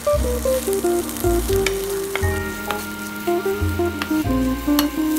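Chopped onions and masala sizzling as they fry in a non-stick pan while a spoon stirs them, with a few sharp clicks. Background music with a bass line and a stepped melody plays throughout.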